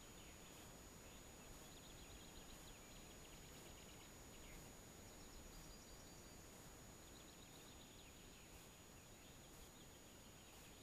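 Near silence: faint birdsong, several short chirping trills from distant songbirds, over a low hiss and a thin steady high tone.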